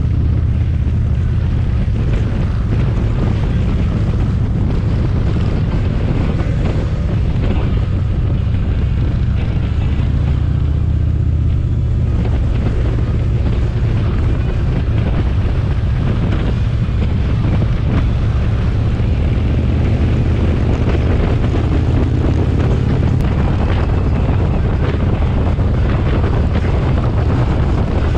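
Motorcycle engine running steadily at highway cruising speed, a constant low drone, with wind rushing over the microphone.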